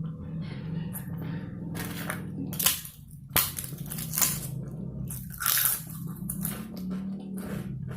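Close-miked chewing of a mouthful of biryani: irregular wet smacks and mouth clicks, the sharpest a few seconds in, over a steady low hum.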